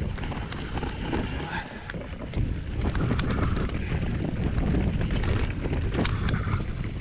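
Mountain bike ridden fast down a rough dirt trail: tyre rumble and the bike rattling and clicking over bumps, with wind buffeting the microphone. It gets louder about two seconds in.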